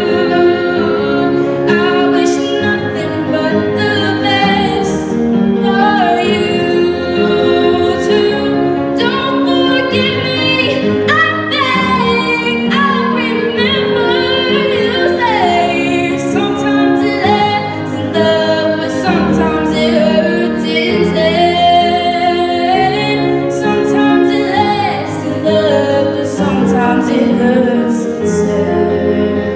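A girl singing solo into a handheld microphone over an instrumental backing track, amplified through PA speakers; her melody line rises and falls over steady sustained chords.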